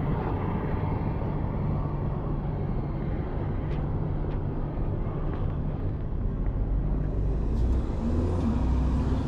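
Road traffic at a city intersection: vehicles passing with a steady low rumble that swells near the end.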